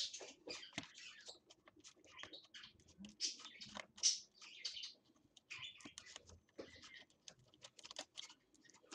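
Irregular light clicks and scrapes of a small hand tool working against the plastic of a laptop's hinge and screen-bezel area, as a cable is tucked into place.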